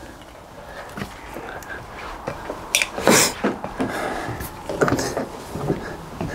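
Light handling noises on the van roof around the skylight while sealant is worked along its edge: scattered small clicks and knocks, with a short breathy hiss about three seconds in.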